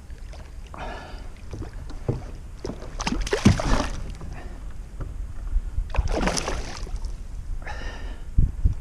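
Kayak paddle strokes splashing in the water, two main strokes about three seconds apart, with shorter rasping sounds between them and a steady low rumble underneath.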